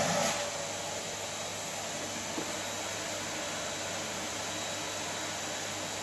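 Canister vacuum cleaner running, its nozzle worked over a wooden floor: a steady hiss with a low hum underneath, a little louder in the first half-second.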